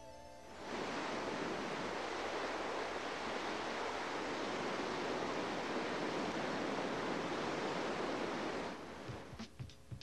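Steady rushing roar of whitewater rapids. It comes in about a second in as a tune cuts off, and stops shortly before the end, where a few sharp knocks start.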